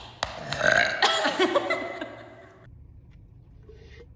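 A girl's loud, drawn-out burp lasting about two seconds, then dying away.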